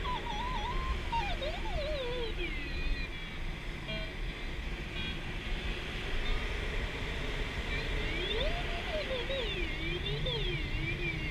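Electronic audio variometer in a K13 glider cockpit: a tone that glides up and down in pitch as the rate of climb or sink changes, over a steady rush of airflow. The tone dies away about a quarter of the way in and comes back wandering about two-thirds through.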